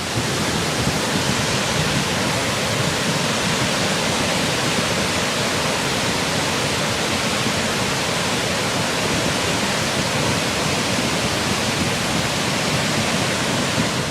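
Rushing water: a loud, steady, even rush of noise without breaks.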